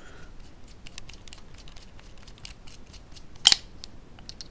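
Small hand screwdriver turning a screw into a carbon-fibre gimbal plate: faint light clicks of the tool and screw, with one sharp louder click about three and a half seconds in.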